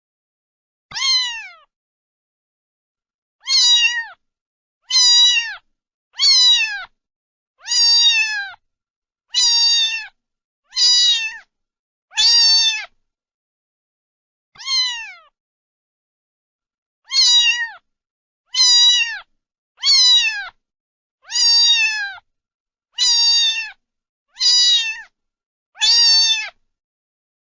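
A cat meowing over and over, about sixteen high-pitched meows that each drop in pitch at the end, spaced a second or two apart.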